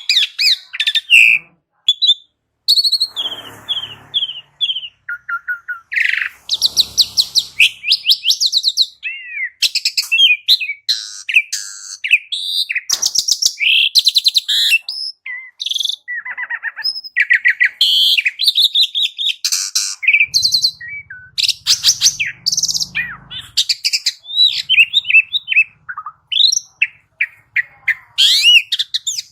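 Jalak suren (pied starling) singing a long, busy run of varied chirps, gliding whistles and harsh buzzy notes, one after another with hardly a pause.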